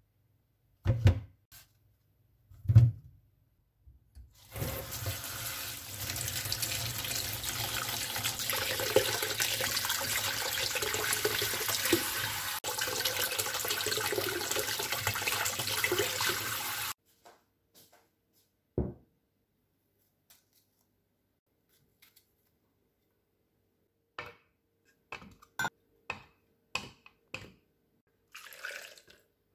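Kitchen tap running steadily into a stainless steel sink while strawberries are rinsed under the stream; it starts about four seconds in and shuts off suddenly about twelve seconds later. Two sharp thumps come before it, and scattered light clicks and knocks follow it.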